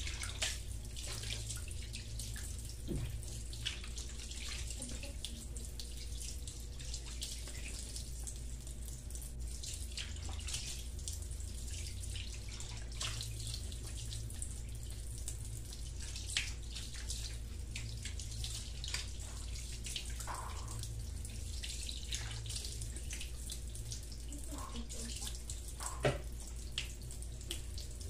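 Face and neck being washed with soap and water at a sink: scattered splashes and drips of water over a steady low hum, with a few sharper knocks, the loudest near the end.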